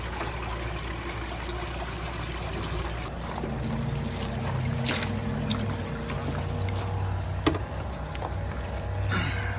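Water trickling and splashing, with a low motor hum that builds about three seconds in and a few sharp clicks.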